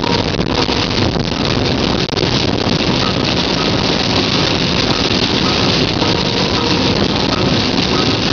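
Heavy rain pouring onto a car windshield, heard from inside the car as a loud, dense, unbroken hiss.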